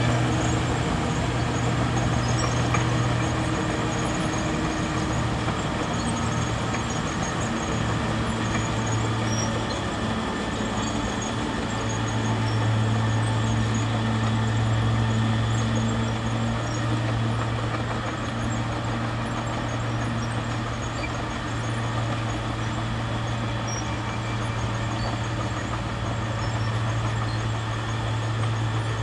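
Bulldozer's diesel engine running steadily with a low hum, growing a little stronger about twelve seconds in.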